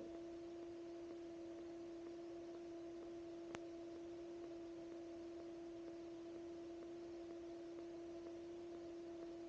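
Faint steady electrical hum on the aircraft's headset intercom audio: one unchanging tone with a weaker overtone over light hiss. A single faint click comes about three and a half seconds in.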